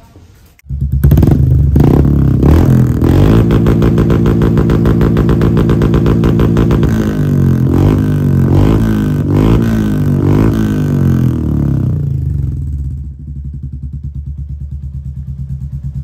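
Royal Enfield Meteor 350's single-cylinder engine running loud through an aftermarket exhaust. It cuts in suddenly under a second in and is revved in several blips around the middle. Near the end it settles to a quieter, evenly pulsing run.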